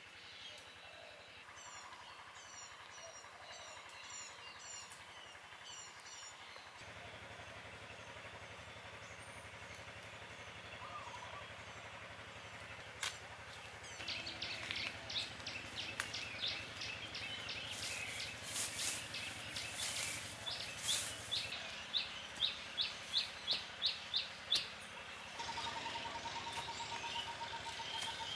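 Outdoor rural ambience: birds chirping in short repeated calls, growing busier in the second half with a run of sharp notes about three a second. A steady fast insect trill sets in near the end.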